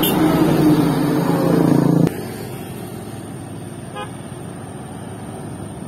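A loaded Mitsubishi Fuso Canter dump truck's diesel engine running loud as it passes close. It cuts off abruptly about two seconds in, leaving a quieter steady hum of distant road traffic.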